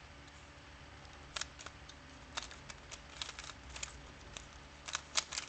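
3x3 Rubik's cube being turned by hand, its plastic layers clicking in quick, irregular runs that start about a second in, the loudest clicks near the end.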